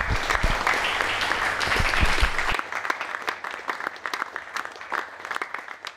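Audience applause: dense clapping at first that thins out after about two and a half seconds and fades away.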